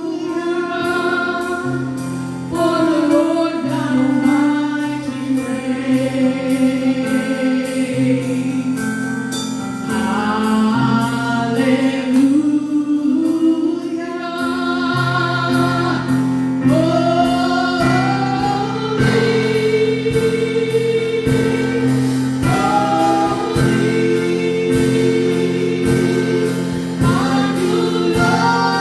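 Church worship team singing a gospel worship song over sustained instrumental chords, with voices gliding between notes; percussion strokes come in about two-thirds of the way through.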